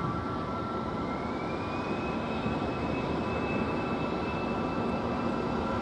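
Airbus A320's jet engines spooling up for takeoff, a steady roar with a whine that rises in pitch about a second in and then holds steady.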